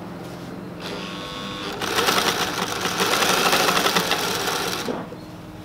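Vintage PFAFF 230 sewing machine sewing a test seam. A steady hum at first, then about a second in the machine picks up speed and stitches fast for about three seconds before slowing to a stop near the end.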